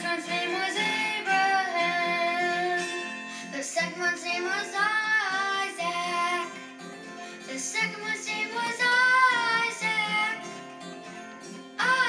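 Music: a song with plucked guitar and a singing voice.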